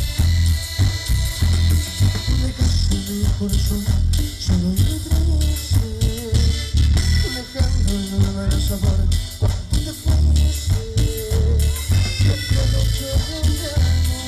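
Live band playing loud dance music, with a heavy, regular bass-and-drum beat under electric guitar and keyboard.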